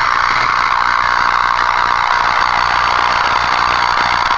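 Small homemade Tesla coil running with a light bulb as its top load, giving a loud, steady electrical buzz with a low hum beneath it. It starts abruptly and cuts off abruptly near the end.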